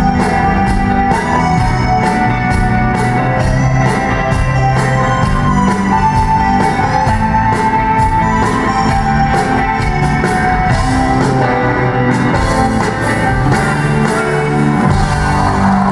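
Live rock band playing: electric and acoustic guitars over a steady drum beat of about two hits a second, with the sound of a large arena.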